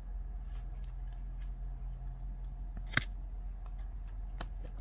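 Paper baseball trading cards being flipped through by hand, each card slid off the stack with a soft swish and tapped onto the pile, giving light irregular clicks; the sharpest card snap comes about three seconds in, another shortly before the end.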